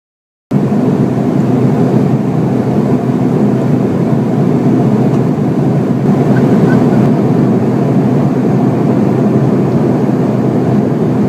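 Steady, loud cabin noise of a jet airliner in cruise, heard beside its rear-mounted turbofan engine: the even rush of the engine and airflow with a low hum. It starts suddenly about half a second in.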